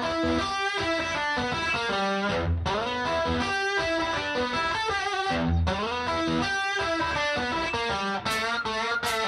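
Background music: an electric guitar instrumental with a steady beat.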